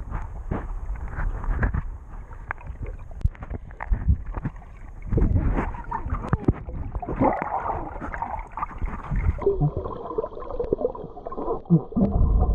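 Muffled underwater sound through an action camera's waterproof housing: water moving and bubbling, with frequent knocks and taps on the housing. The sound grows duller about nine and a half seconds in.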